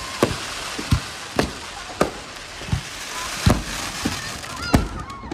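Fireworks going off: about seven sharp, irregular bangs over five seconds, with a crackling hiss between them.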